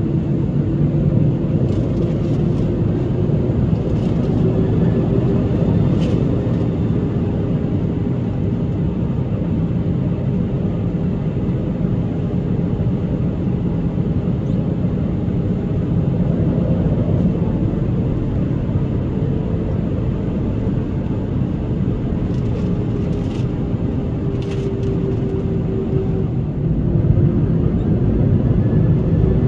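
Steady drone of an Airbus A319's engines and air systems heard from inside the passenger cabin, with a faint held hum tone and a few small clicks.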